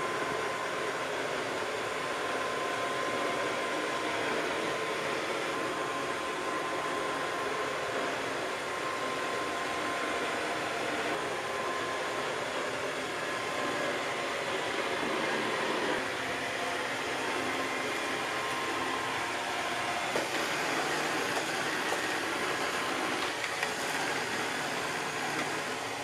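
iRobot Roomba 675 robot vacuum running on carpet: the steady whir of its suction fan and brushes, with a faint high steady tone in the first half. A few small knocks come in the last few seconds.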